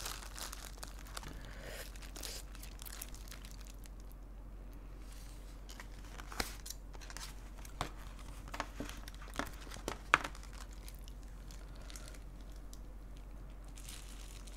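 Crinkling and rustling of disposable plastic gloves and foil wrapping as gloved hands pick through a box of chicken pieces, with a few sharp clicks scattered through the middle.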